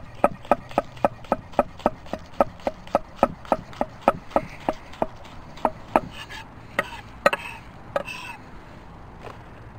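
Chef's knife dicing green onions on a wooden butcher-block cutting board: steady chopping strokes about three to four a second, thinning to a few scattered taps after about six seconds.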